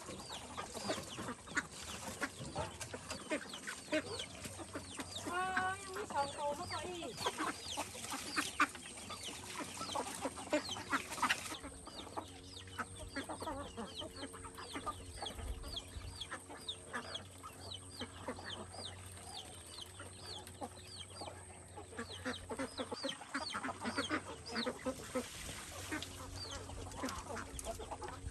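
Chickens clucking and calling, with a steady stream of short high chirps that grows into a rapid run through the second half.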